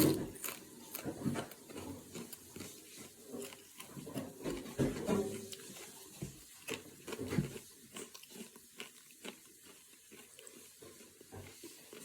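A person bites into a crunchy popped-corn chip with a sharp crack, then chews it in a run of irregular crunches that grow fainter toward the end.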